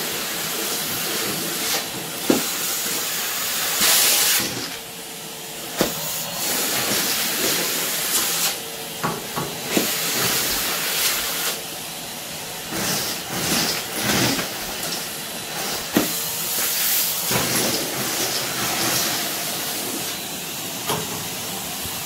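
Numatic Henry vacuum cleaner running, its hose and metal wand sucking up sawdust from a laminate floor. It makes a steady rushing hiss with a faint hum, dips briefly in level about five seconds in, and gives scattered sharp clicks as bits of sawdust are drawn up the wand.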